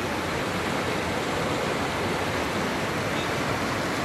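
Floodwater rushing through a flooded street: a steady, even rushing hiss with no breaks.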